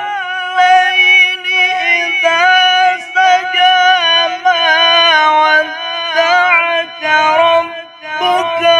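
A qari's male voice sings long, ornamented melodic phrases in Quranic recitation style, holding each note for a long breath as a breath-lengthening exercise. It breaks off briefly about three seconds in and again near the eight-second mark.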